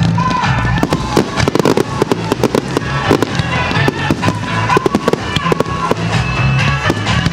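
Aerial fireworks shells bursting and crackling, many sharp bangs and pops in quick succession, over music with a steady bass line.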